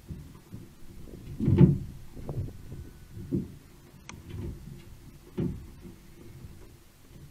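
Dull, irregular thuds and knocks, roughly a second apart, of a brushtail possum moving over loose corrugated-iron roof sheeting; the loudest knock comes about a second and a half in.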